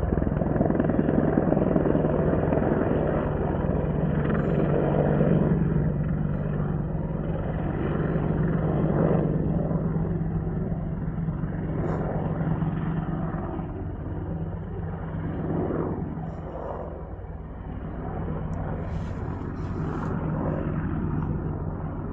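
AH-64 Apache attack helicopter flying low overhead, a steady drone of rotor and turbine engines. It is loudest in the first few seconds, then grows gradually weaker with some swells as it moves off.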